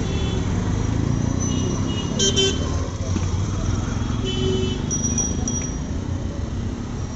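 Busy city street traffic rumbling steadily, with vehicle horns tooting briefly about two seconds in and again a little past four seconds, and voices in the background.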